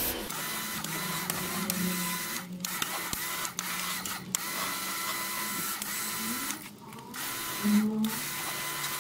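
Kärcher K2 electric pressure washer running, its motor and pump whirring under the hiss of the water jet spraying into a car's wheel arch. The spray hiss breaks off briefly a few times.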